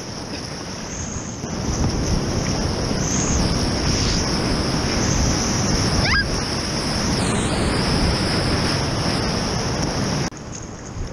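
Whitewater rapid rushing and splashing around a kayak, with wind buffeting the microphone. The rush swells about a second and a half in and drops off sharply near the end.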